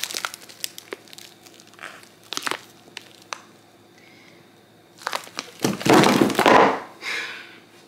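Crinkling and crackling of clear plastic packs of raw chicken thighs being handled, scattered at first, then louder for a second or so about six seconds in.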